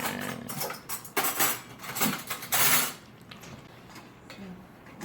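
A spoon scraping and knocking against a cooking pot as sauce is spooned over chicken, in several strokes over the first three seconds, then quieter.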